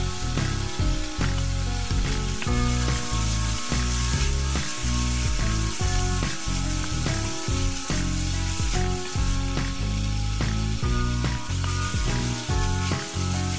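Kimchi, sliced sausage and green onions sizzling as they are stir-fried in a nonstick frying pan with a wooden spatula, under background music.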